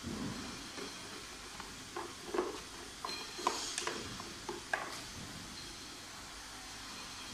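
Light clicks and knocks of plastic pressure-washer parts and a screwdriver being handled during assembly, bunched together in the middle, over a faint steady hiss.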